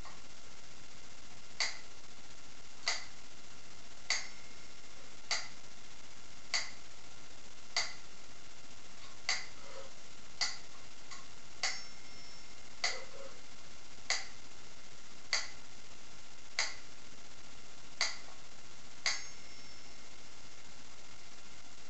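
Metronome ticking slowly, about one tick every 1.2 seconds, stopping about 19 seconds in.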